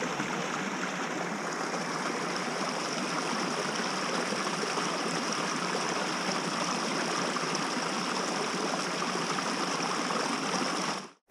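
Small forest brook running over rocks: a steady rush of water that cuts off suddenly near the end.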